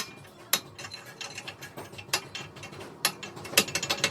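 Sharp metal-on-metal knocks and clicks from tools working on truck axle parts. There are a few separate strikes spaced irregularly, then a quicker run of clicks near the end.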